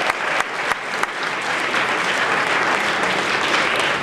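Audience applauding: many hands clapping together at a steady level, welcoming a soloist to the stage.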